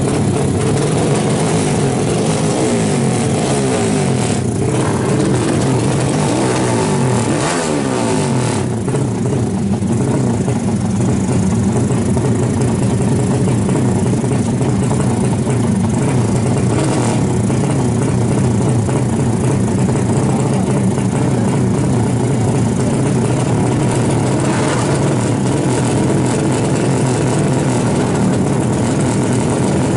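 Drag-race motorcycle engines running and revving together, a dense steady engine sound with pitches sliding up and down for several seconds early on.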